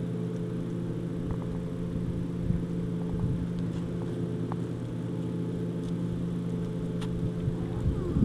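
Steady low mechanical hum, like a motor running, with faint scattered clicks and crunches from a husky chewing through a raw whole chicken.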